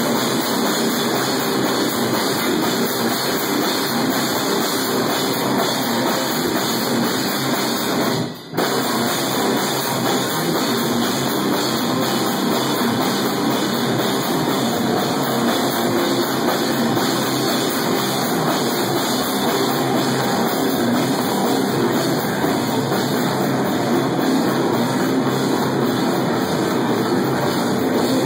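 Live stoner metal band playing loud, with distorted electric guitar and a drum kit in a dense, unbroken wall of sound. There is a momentary drop in level about eight seconds in.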